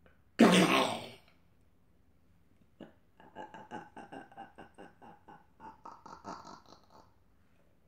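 A person's voice: one loud, short vocal sound about half a second in. From about three seconds in comes a run of rapid pulsed vocal sounds, about five a second, for around four seconds.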